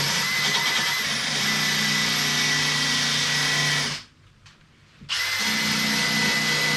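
Handheld power tool motor running steadily with a thin whine, used to scrub old gasket adhesive off valve covers. It stops abruptly about four seconds in and starts again about a second later.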